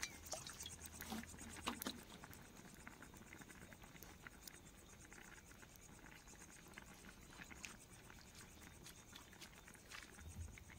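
Faint, irregular ticking and crackling from a lidded pot of potatoes and chickpeas boiling on a wood campfire.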